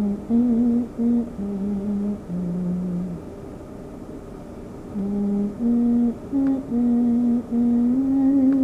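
A person humming a slow melody: a phrase of held notes, a pause of about two seconds, then a second phrase.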